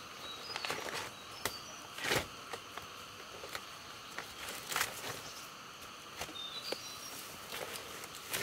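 Irregular knocks and rustles, about a dozen scattered sharp sounds, over a steady chirring of insects, with two brief bird chirps.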